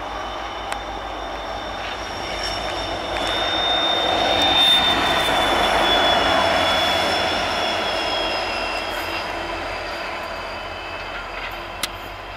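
A WDG4 diesel locomotive passing at speed: the engine and wheels on the rails grow louder to a peak about halfway through, then fade as it moves away. Steady high ringing tones ride over the rumble and drop slightly in pitch as it goes by, with a single sharp click near the end.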